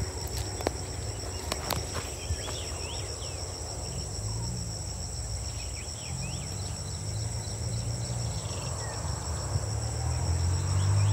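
Steady chorus of insects such as crickets, two high continuous buzzing tones, over a low rumble that grows louder near the end. A few sharp clicks come early and short chirps are scattered through it.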